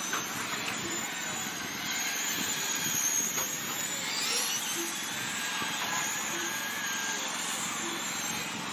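Electric RC dirt oval race cars (Mudboss class) running laps, their motors giving a high, steady whine over a wash of noise. The whine rises about three seconds in as a car passes close.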